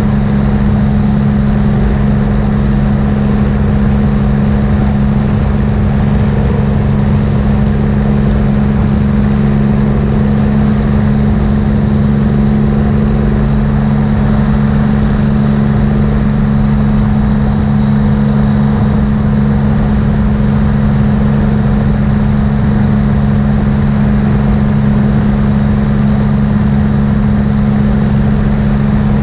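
Triumph motorcycle engine, hauling a sidecar, running steadily at highway cruising speed: a constant drone with no change in revs, over a rumble of wind on the microphone.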